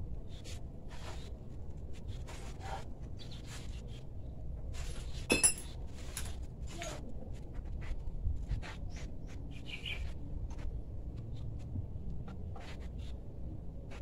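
Scattered light metallic clinks and taps of metal parts and tools being handled at a bench vise, with one louder, sharp ringing clink a little over five seconds in.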